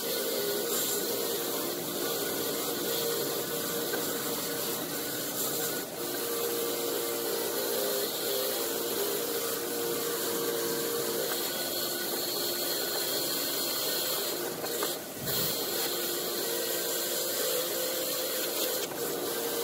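An old Ingersoll-Rand (IR) bench grinder running under load, its wire wheel scrubbing rust off a steel trailer hitch ball. It gives a steady hiss of wire on metal over the motor's hum, with three brief let-ups. The motor holds its speed under hard pressure, which the owner takes as the sign that the newly fitted run capacitor is working.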